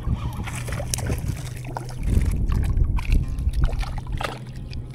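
Water splashing and sloshing as a small trout is reeled in and thrashes at the surface, over a steady low rumble with scattered short clicks.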